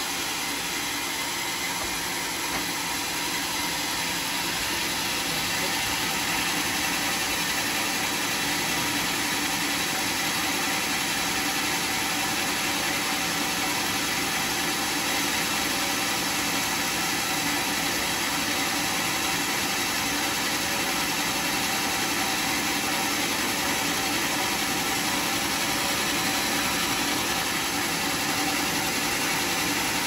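Sawmill machinery running steadily, a constant mechanical hum and noise that does not change.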